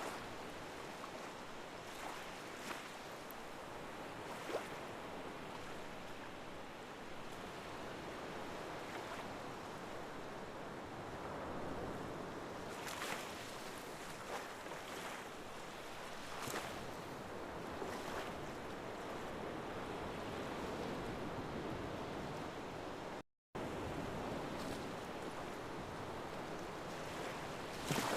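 Ocean waves washing on a shore: a steady rushing with a few brief swells, and a momentary gap in the sound about two-thirds of the way through.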